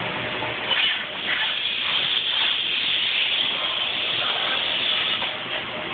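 Steady hissing background noise with a few faint clicks.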